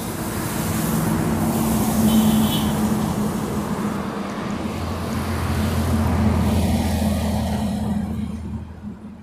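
A motor vehicle passing close by: engine hum and road noise that swell over the first couple of seconds, hold, then fade away near the end.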